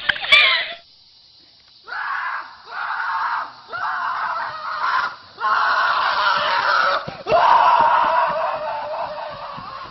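Repeated screaming: five long, rough screams in a row with short breaks between them, the last one fading away.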